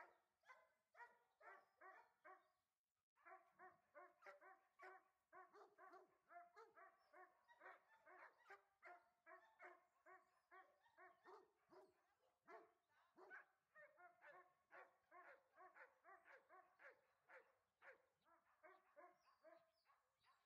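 Dog barking rapidly and without let-up, about two to three barks a second, faint, with one short break about three seconds in.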